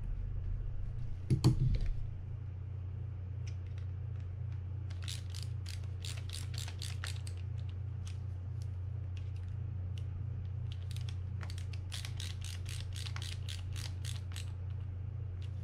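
Rapid light mechanical clicking, about five to seven clicks a second in two runs, while screws are driven into a Penn Warfare 20 fishing reel's frame with a mini screwdriver. There is a single knock about a second and a half in, over a steady low hum.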